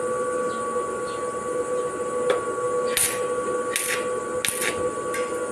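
Arc welding on a steel railing post: short hissing bursts of the welding arc, several in quick succession from about halfway in, over a steady whine.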